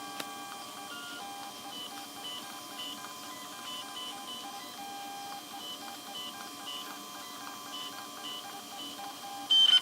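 Creality CR-6 SE 3D printer's stepper motors whining during its 16-point automatic bed-leveling run: a set of steady tones that keep switching pitch in short steps as the head and bed move from point to point.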